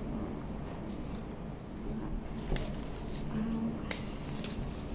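A small paper slip rustling and crinkling as it is handled and unfolded, with a sharp click a little before the end and a brief hum of a child's voice shortly before it.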